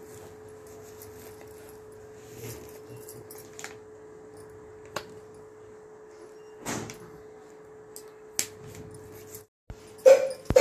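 Glass bangles clinking now and then as oiled hands massage a baby, with light rubbing over a steady hum. A louder cluster of sharp sounds comes near the end.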